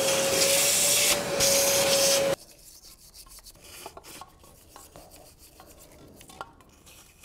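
A loud spray hiss with a steady whistling tone cuts off suddenly about two and a half seconds in. It is followed by quiet, irregular scrubbing and rubbing with small clicks as old grease is cleaned out of the valley of a BMW M70 V12 engine.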